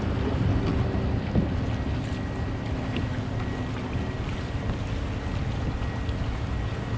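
Wind buffeting the microphone over water moving and lapping around a kayak hull in a strong current, with one light knock about a second and a half in.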